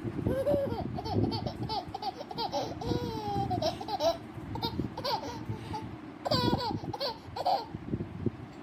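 A seven-month-old baby laughing in a string of high-pitched giggles and squeals, with a short break a little past the middle.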